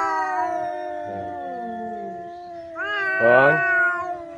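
Two cats, a ginger and a white colorpoint, yowling at each other in an aggressive standoff: long, drawn-out, wavering cries that slowly fall in pitch, with a fresh yowl rising about three seconds in.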